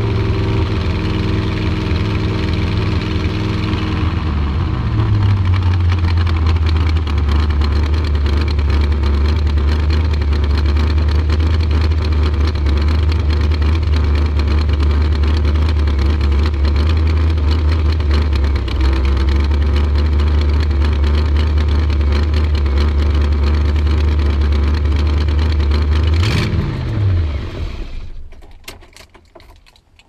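350 small-block Chevy V8 with a Comp Cams Thumpr cam, its revs falling from about 2,600 rpm back to a steady idle over the first few seconds, then idling on the low manifold vacuum this cam gives, which the owner thinks is a little low. Near the end a quick rev, then the engine shuts off.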